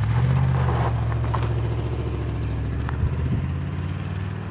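Pontiac GTO's 389 V8 running steadily with a low exhaust note, slowly getting quieter.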